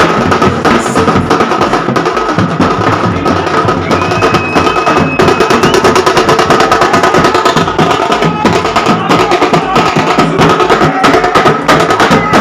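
Loud band music with fast, dense drumming that runs without a break.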